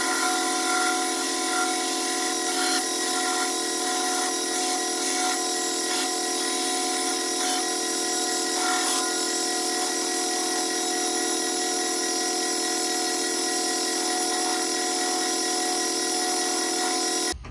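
Belt grinder running steadily with an even whine, rough-shaping the wooden handle of a chef knife. It stops abruptly near the end.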